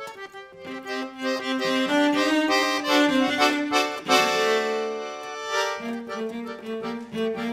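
Accordion and cello playing together, sustained melodic notes with the accordion to the fore. The music swells up after a soft first half second, with a sharp accent about four seconds in.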